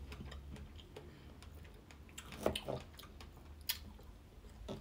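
A few faint clicks and taps of a kitchen knife on a plastic chopping board as a strawberry is cut, with a short soft sound of it being tasted a little past halfway and two sharper clicks near the end.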